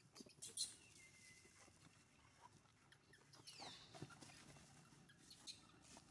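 Near silence, with faint high-pitched animal squeaks: a short one about a second in and one gliding down in pitch about three and a half seconds in, among soft clicks and rustles.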